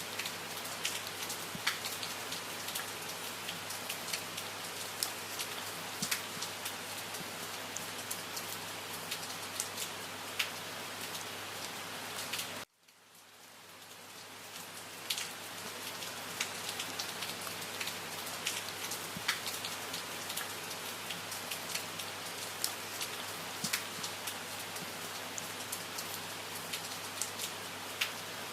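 Steady rain falling, a dense hiss with individual drops ticking sharply through it. About halfway through the sound cuts out suddenly and swells back in over a couple of seconds, the seam of a looped recording.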